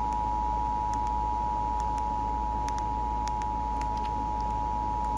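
Emergency Alert System attention signal on NOAA Weather Radio: a steady two-note tone just under 1 kHz, over the broadcast's hiss and low hum, sounding ahead of a severe thunderstorm warning. Faint static clicks come and go.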